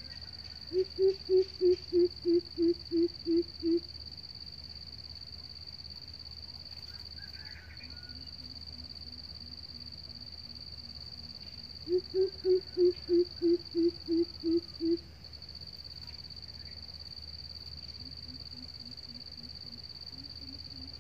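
Decoy greater coucal calling: two runs of about ten low, evenly spaced hoots, one about a second in and one about twelve seconds in. Fainter, lower-pitched hooting runs come between them and near the end, over a steady high-pitched whine.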